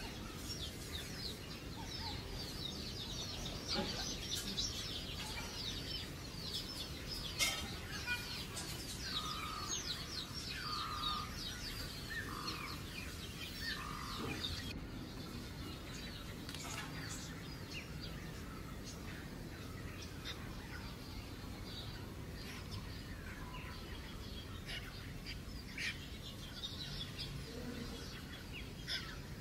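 Many short, high-pitched chirping calls, each one falling in pitch, thickest in the first half, with a few short, lower, steady notes near the middle.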